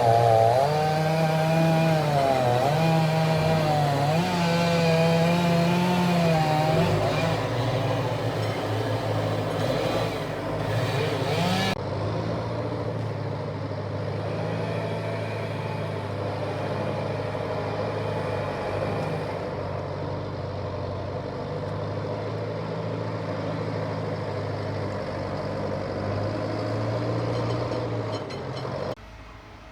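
Chainsaw engine running, its pitch rising and falling as it works, then, after an abrupt change about twelve seconds in, a steadier lower engine hum. The sound drops away sharply about a second before the end.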